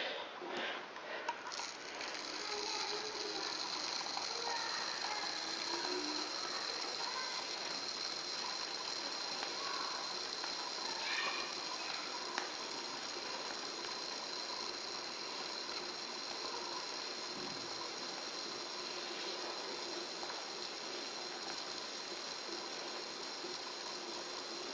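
Foam gun injecting polyurethane mounting foam into a hole drilled through a floorboard and joist, a steady hiss with a faint crackle that starts about a second and a half in.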